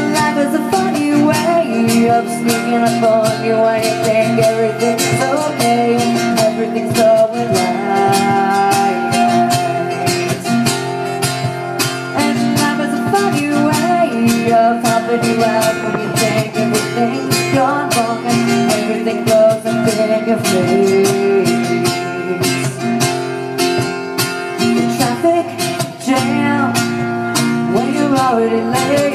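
Live acoustic band music: a strummed acoustic guitar and a singer, amplified through a PA speaker, playing steadily.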